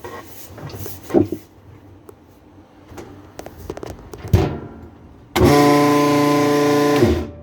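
A few sharp clicks, then a loud steady electric hum from a Roper washing machine's drive motor for nearly two seconds, starting and cutting off abruptly: the washer is trying to spin but the tub is totally stuck.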